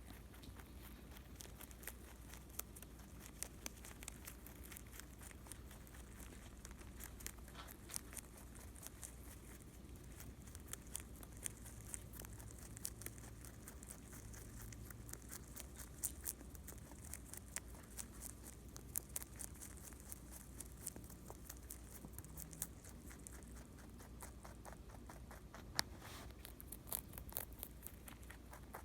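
Rabbit chewing dry food: a faint, quick, irregular run of small crunching clicks.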